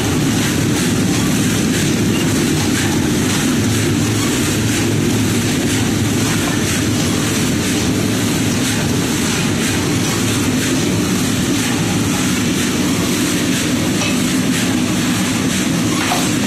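Black chickpeas rattling and scraping continuously in a large iron wok as they are churned with a long metal paddle while dry-roasting, over a steady low rumble.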